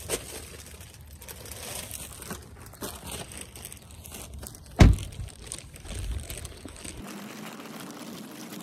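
Close rustling and crackling handling noise on a handheld phone microphone in the wind, with one loud thump about five seconds in.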